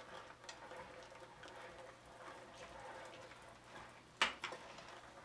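Faint, scattered handling noise of hands working sticky cuccidati fig filling on a plate, with one sharp knock about four seconds in and a smaller one just after.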